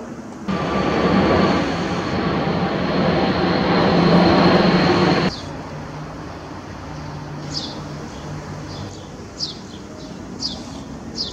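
Jet airliner's engines running as it passes low overhead: a loud roar with a steady high whine that cuts off abruptly about five seconds in. A quieter steady rumble follows, with short high chirps repeating about once a second.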